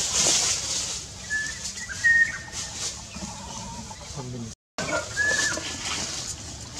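A few short, high, whistle-like animal calls, each under half a second, over a steady hiss. The sound cuts out completely for a moment about two-thirds through.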